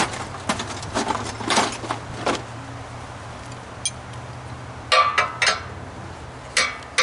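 Metal parts of a stripped air compressor knocking and clinking together: a few dull knocks in the first two seconds, then short clusters of sharp, briefly ringing metal clinks about five seconds in and again near the end, over a faint steady low hum.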